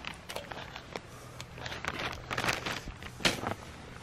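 Soft, scattered crackles and rustles from a Solo Stove Lite twig stove as wood chips are sprinkled in and begin to smoke.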